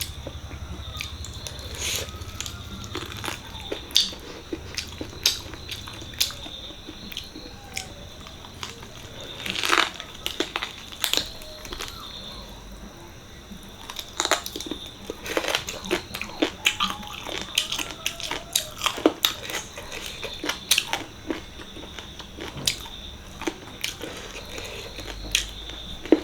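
Close-up eating sounds from a meal of mutton leg (paya) curry with rice: wet chewing and lip smacks, with sharp irregular clicks through the whole stretch.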